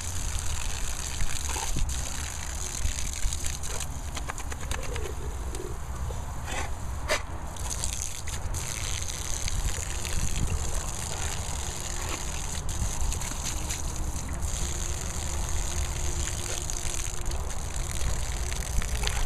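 Water from a garden hose spattering onto a grass lawn, under a steady low rumble, with a few short clicks and splashes.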